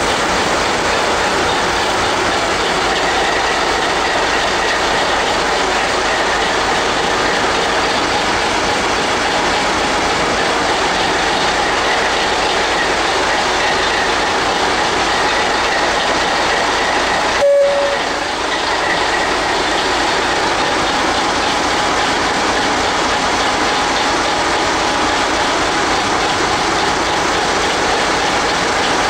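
Valmet Dv15 diesel shunting locomotive running as it moves along the track, with its engine and rolling wheels making a loud steady noise. About halfway through, a brief high tone sounds once.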